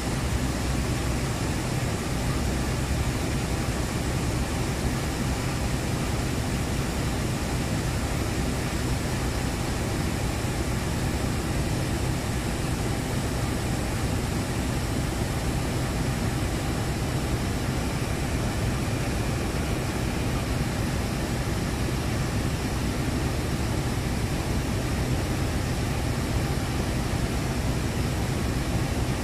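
Diesel locomotive's engine running steadily: an even low hum with a constant hiss over it.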